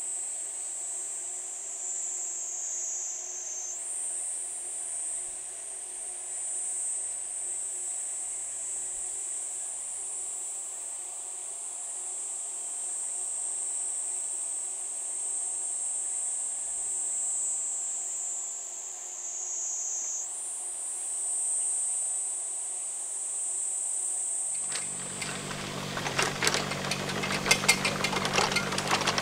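A steady, shrill chorus of insects that sags lower in pitch and jumps back up twice. Near the end a mini excavator's small diesel engine comes in loudly, running with a rattling, knocking clatter.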